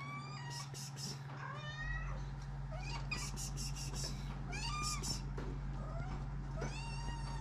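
Cat meowing over and over, short calls about once a second that rise and fall in pitch, over a steady low hum.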